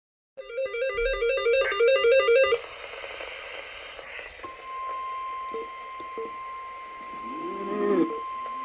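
A quick, repeating pattern of electronic tones lasts about two seconds. After a short pause, a single steady alert tone near 1 kHz starts and holds: the warning alarm tone that opens a tornado warning broadcast.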